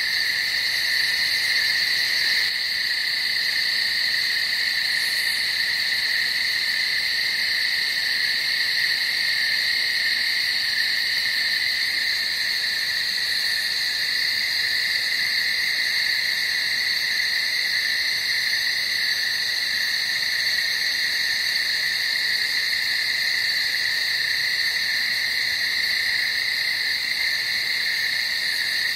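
Dense night chorus of calling frogs: a steady, unbroken high-pitched din at an even level, with no single call standing out.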